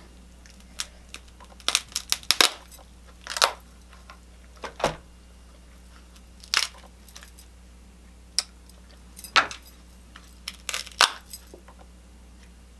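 Irregular sharp cracks and snaps of boiled shellfish shells being broken open by hand to get the meat out, a dozen or so at uneven intervals.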